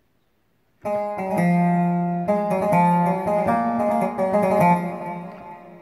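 Korg Pa-series arranger keyboard playing a sampled bağlama (Turkish long-necked lute) voice: a short melodic phrase of plucked notes that starts about a second in and fades near the end.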